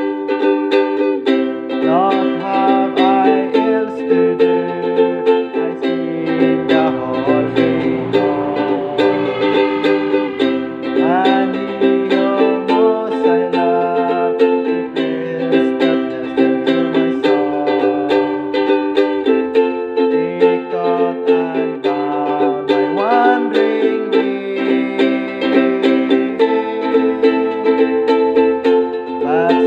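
Ukulele strumming the chords of a hymn tune.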